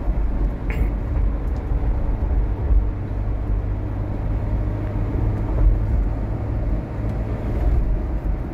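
Steady low drone inside the cabin of a Mahindra Thar diesel on the move at highway speed: engine and road rumble.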